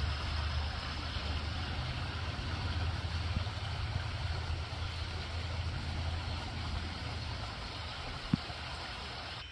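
Steady rushing of flowing creek water over a low, even rumble, with one short click near the end.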